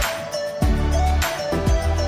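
Background music with a steady beat and deep bass notes that slide down in pitch.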